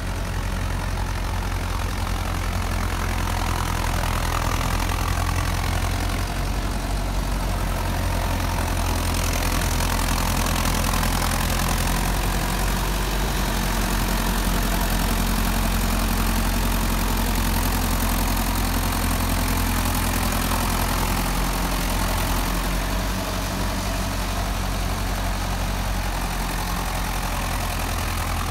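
Diesel engine of an IMT 577 tractor running with a steady, low note as the rail-wheeled tractor pulls freight wagons along the track.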